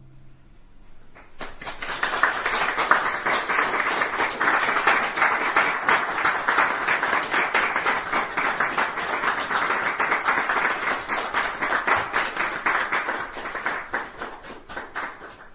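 Audience applauding: a dense patter of many hands, starting about a second in as the last held note of the music fades, then thinning out near the end.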